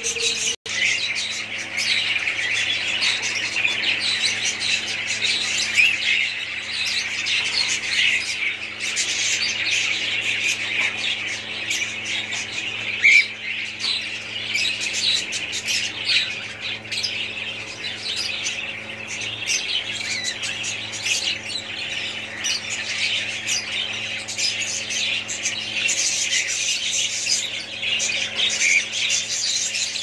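A flock of caged cockatiels calling and chattering without a break, many high chirps and squawks overlapping into a dense chorus, with one louder call about halfway through. A faint steady hum lies underneath.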